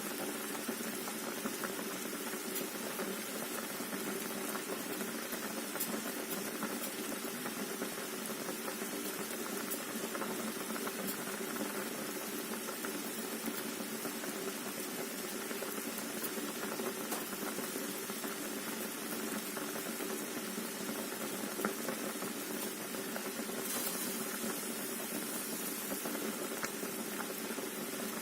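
Pot of water at a steady boil with potatoes and eggs in it, bubbling with frequent small pops.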